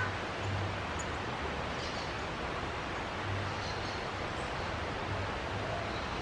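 Steady outdoor hiss and rustle, with a low rumble that comes and goes and a couple of faint, short bird calls about two seconds in and again a little later.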